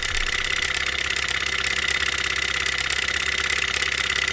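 Small hot-air Stirling engine kit running at a steady speed with a rapid, even ticking, driving a small DC motor as a generator.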